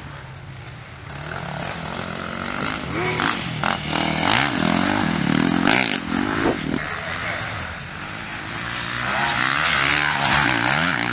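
Motocross bike engines revving hard on a dirt track, their pitch climbing and falling as the riders work the throttle, with more than one bike heard. Quieter for the first second, then loud, easing briefly a little before the end and rising again.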